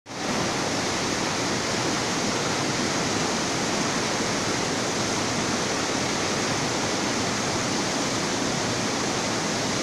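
Fast river rapids rushing over boulders: a loud, steady rush of white water with no breaks.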